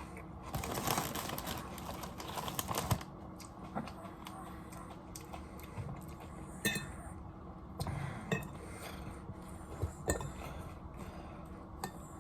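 Close-up crunching of a chip being bitten and chewed: a dense crackle for a couple of seconds, then softer chewing with scattered small clicks.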